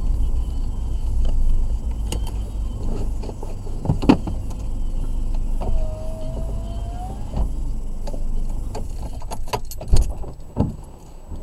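Car interior noise as the car comes to a stop and waits: a low engine and road rumble that eases off, with scattered sharp clicks and rattles, a short squeak about six seconds in, and a louder knock near the end.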